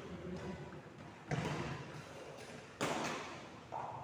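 Three sharp ball impacts in an echoing indoor court, each hit ringing on briefly: one about a second in, another near three seconds, a third just before the end.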